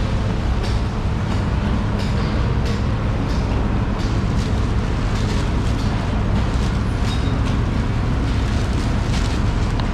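Steady low mechanical rumble, overlaid by repeated sharp knocks and clicks, about one or two a second, some with a brief high metallic ring.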